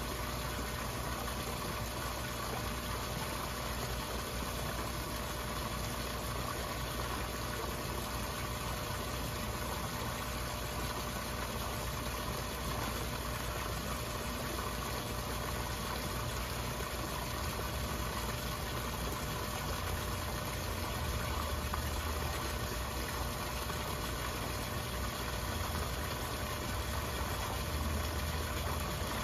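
Koi pond's pump and water flow: a steady mechanical hum under running, churning water.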